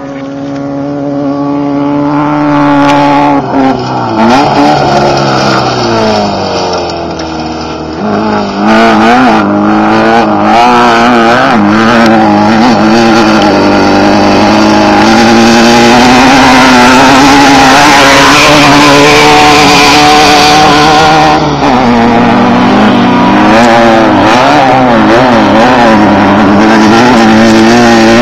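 Off-road desert race cars' engines running hard past a checkpoint. The engine note climbs and falls in pitch again and again as the drivers rev and shift, and it gets louder over the first few seconds.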